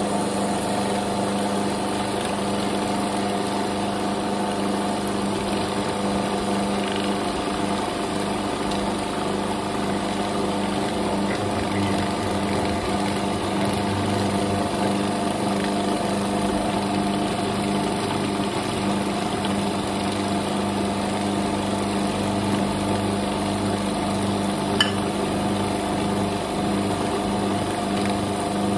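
Food processor motor running continuously, its blade grinding a roasted sesame seed and palm jaggery mixture into a sticky paste. A single brief tick comes near the end.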